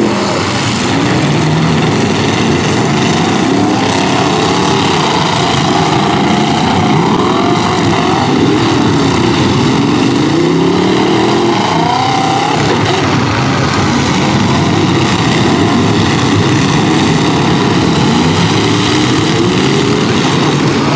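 Several car engines revving at once, their pitch rising and falling in overlapping sweeps without a break.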